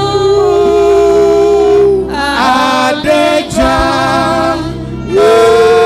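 Gospel singing: voices holding long notes of a worship song, with a break in the line about two seconds in and a new held note near the end.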